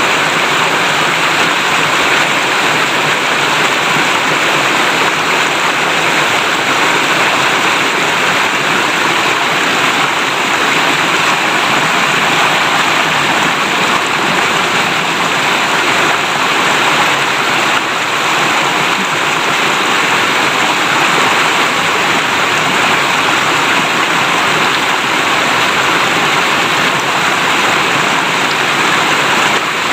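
River water flowing and babbling, a steady, even rush with no breaks.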